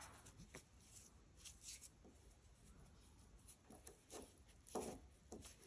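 Near silence, with faint soft rustles and light ticks of yarn being worked with a crochet hook.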